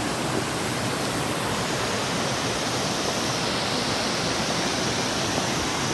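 A waterfall rushing: a steady, even hiss of falling water.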